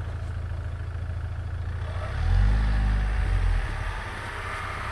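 UAZ Patriot SUV engine running low and steady, revving up about two seconds in for roughly a second before dropping back, as the vehicle pushes through deep snow.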